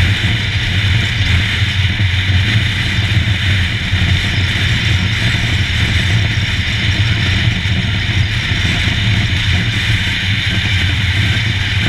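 Royal Enfield Himalayan's single-cylinder engine running steadily as the motorcycle cruises, with a steady rush of wind and road noise over it.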